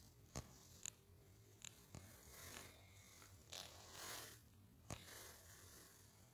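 Near silence, broken by a few faint sharp clicks and soft rustles.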